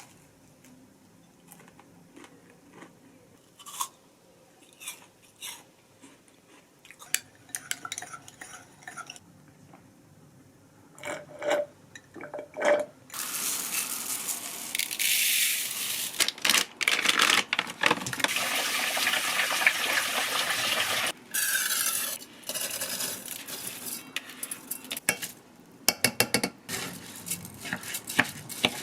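Kitchen work: dishes, pots and utensils clinking and knocking, with a steady stretch of running water for several seconds around the middle, then more clatter.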